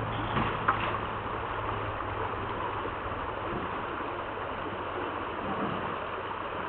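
Steady rush of shallow river water, with a brief sharp knock under a second in.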